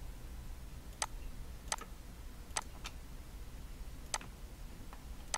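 Computer mouse clicking: about seven single, sharp clicks at irregular intervals, over a faint low hum.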